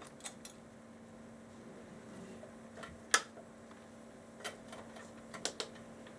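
Small sharp plastic clicks and taps from a Bluetooth earbud being taken apart, scattered irregularly, with one louder click about three seconds in and a quick run of three near the end.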